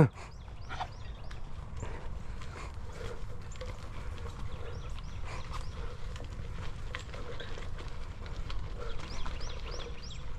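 A bike ridden over a rough, rocky dirt trail: a steady low rumble with many small clicks, knocks and rattles from the bumpy ground.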